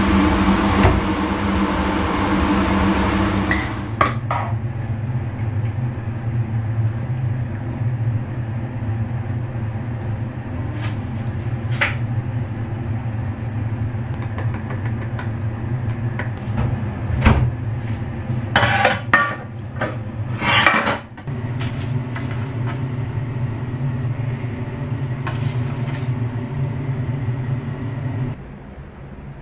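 Kitchen sounds over a steady low hum: an oven door shuts with a clunk about four seconds in. Later a metal ladle clinks and scrapes against a steel pot and a ceramic bowl as soup is served, in a cluster of clatter near two-thirds of the way through.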